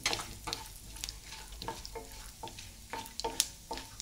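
Wooden spatula stirring cashews and whole spices in hot ghee in a non-stick kadhai, being browned lightly: irregular scraping strokes against the pan, a few a second, over a soft sizzle. The loudest stroke comes about three and a half seconds in.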